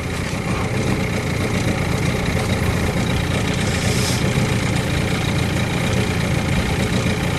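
Small boat's motor running steadily at low speed.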